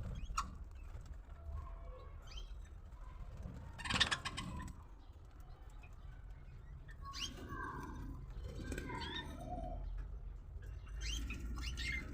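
Lovebirds chirping in short, scattered rising calls, with a brief loud rustling burst about four seconds in and softer, lower calls later on.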